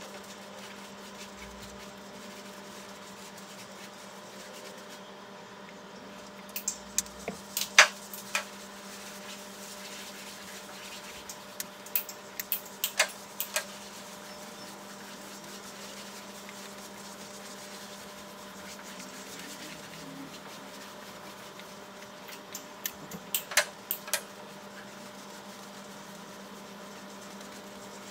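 A steady electrical hum, broken three times by short runs of sharp clicks and knocks, about seven, twelve and twenty-three seconds in.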